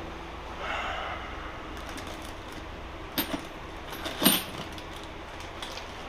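Metal hand tools such as sockets clinking together as they are handled and sorted: a couple of sharp clinks about three seconds in and a louder clink just after four seconds, over a low steady hum.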